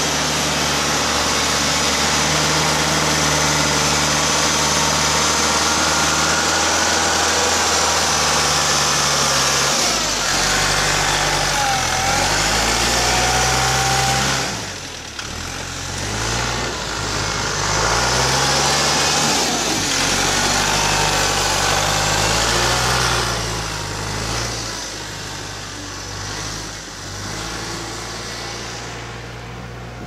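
Compact sidewalk tractor's engine running close by as it clears snow with its front plow blade; the engine note shifts up and down in steps from about ten seconds in, then eases off near the end.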